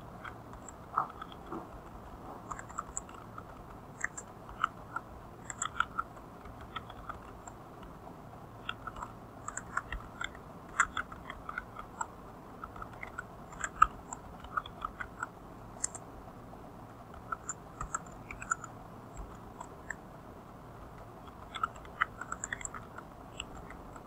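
Computer keyboard being typed on: slow, uneven runs of keystroke clicks with a couple of pauses of a second or two, over a faint steady hiss.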